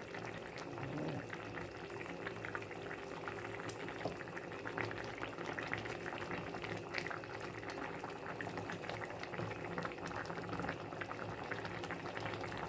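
Pot of chicken in tomato sauce simmering on the stove, bubbling steadily with a dense crackle of small pops.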